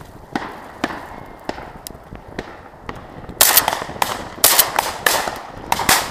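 Shotgun shots at ducks in flight from several guns. In the first three seconds the shots are fainter and come about every half second. From about three and a half seconds in comes a rapid volley of much louder, closer shots, each with a short echo trailing after it.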